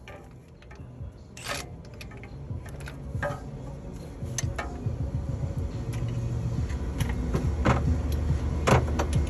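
Sharp metal clicks and knocks of a cordless tool and its socket being worked onto the bolts of a truck engine's belt tensioner, over a low hum that grows louder from about halfway.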